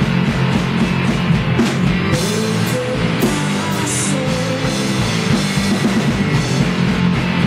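Live rock band playing loudly: electric guitars over a driving drum kit.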